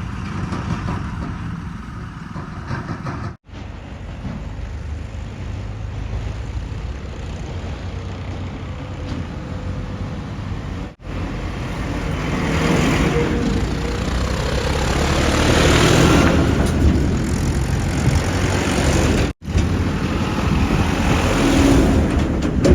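Diesel engines of heavy farm and construction machinery, tractors or a backhoe loader, running and working, heard in several short clips joined by abrupt cuts. The engine noise grows louder and harsher in the later clips.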